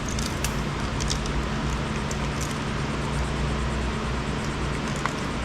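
Electric fans running with a steady hum and rushing air, and a few faint clicks.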